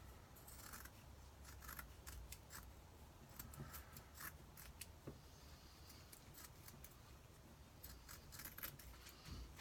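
Faint, scattered snips and clicks of scissors cutting fibreglass matting for a GRP repair.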